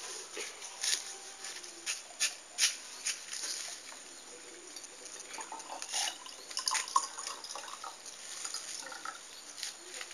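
Hot water poured from an aluminium cooking pot into a small glass: trickling and dripping liquid with scattered sharp clicks.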